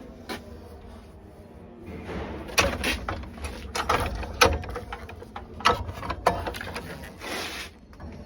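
Steel unistrut channel and tools being handled: a run of sharp metallic clanks and knocks, with a short scraping rustle near the end.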